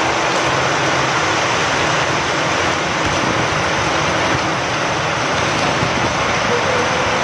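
Steady rain falling, with wind.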